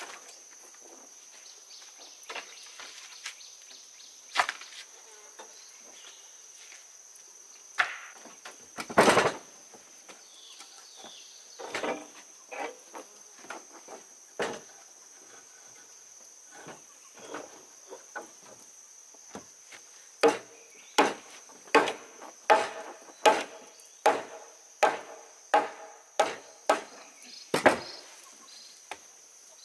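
Wood being struck with a hand tool: scattered knocks and a louder crack about nine seconds in, then a steady run of blows, about three every two seconds, in the last ten seconds. A steady high insect buzz goes on behind.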